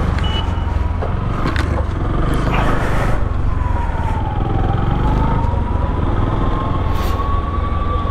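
Motorcycle ride through city traffic: a steady low rumble of engine and wind, with a siren wailing slowly over it, its pitch sinking around the middle and rising again near the end.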